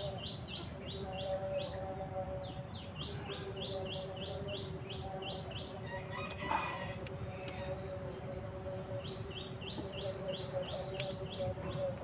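Wild songbirds calling: runs of short, quickly repeated falling chirps, about five a second, lasting a second or two each, with a single higher note every two to three seconds. A faint steady low hum runs underneath, and there is a brief soft noise about halfway through.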